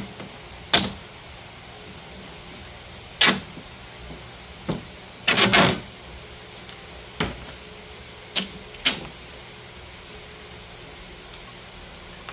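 Duct tape being pulled off the roll and wrapped tight around a wire fur stretcher and plywood board, in several short, scratchy pulls with quiet gaps between; the longest pull, about half a second, falls a little past the middle.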